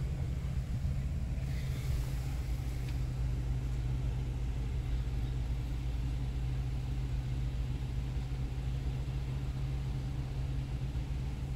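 A 2015 BMW's engine idling steadily inside the cabin, an even low hum that does not change.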